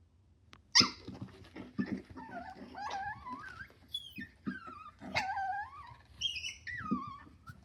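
Two Yorkiepoo puppies play-fighting over a bone: a sharp knock about a second in, then a run of high, wavering whines with small scuffling knocks between them.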